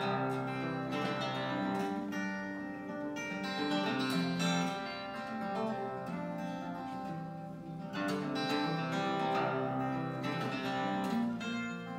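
Solo acoustic guitar, fingerpicked: a steady run of picked notes over ringing bass notes, with no singing.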